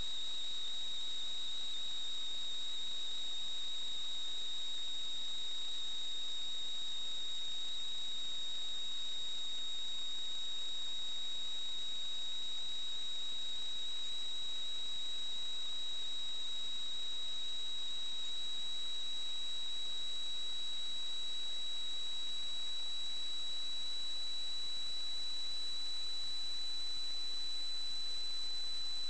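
Steady high-pitched electronic whine over a constant hiss, with a fainter tone an octave above, drifting very slightly higher toward the end. It is electrical noise on the sewer inspection camera's recording, not a sound from the pipe.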